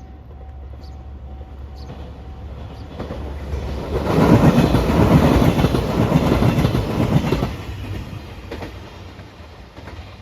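A train passing a level crossing: a rumble builds, the wheels clatter on the rails at full loudness for about four seconds in the middle, then it fades away.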